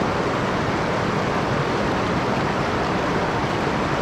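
Steady rush of river water spilling over a low concrete weir and running through shallow riffles.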